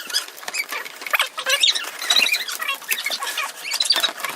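Plastic squeaking and clicking from hands working on the bumper cover and unplugging its electrical connectors: a busy run of short squeaks, scrapes and clicks.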